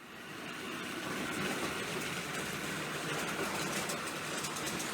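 Hornby Dublo Type 1 model diesel locomotive running on two-rail track: the steady whirr of its small electric motor and gears with wheel-on-rail noise, fading in at the start.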